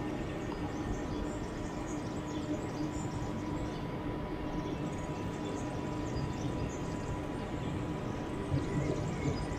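Railway platform ambience: a constant machinery hum with two steady tones, and small birds chirping on and off high above it.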